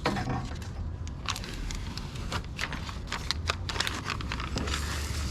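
Plastic cold-air-intake parts being handled and turned into place by hand: an irregular run of small clicks and crinkling rustles, over a low steady hum.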